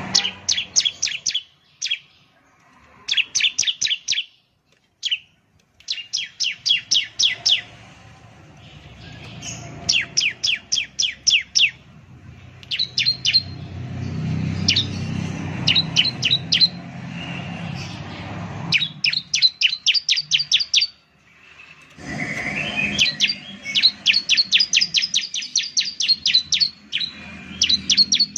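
Bar-winged prinia (ciblek) singing: repeated fast phrases of about six to ten sharp, high, down-slurred notes, with short pauses between phrases.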